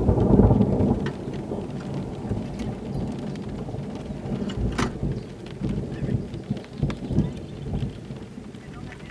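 A roll of thunder, a low rumble that is loudest at the start and dies away over several seconds.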